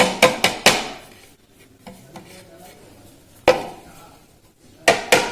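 Metal cake tin being tapped and knocked to spread flour over its greased inside: four quick clanks at the start, one about three and a half seconds in, and two more near the end.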